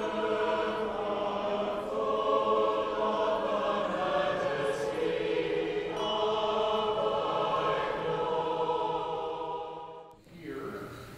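A choir singing slow, sustained chords, the held notes changing every few seconds and fading out about ten seconds in.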